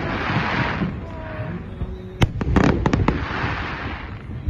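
Fireworks exploding: a sharp bang about two seconds in, then a quick string of reports, with a hissing spray of sound near the start and again after the reports.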